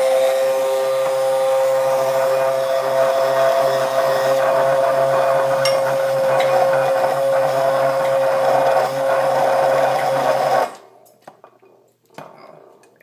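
Immersion blender running steadily in a glass measuring cup, blending egg and oil into mayonnaise, with a steady whine over the motor. It cuts off suddenly about eleven seconds in.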